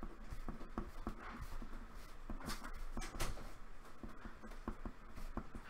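Pen writing on paper on a desk: faint scratching strokes with scattered small ticks.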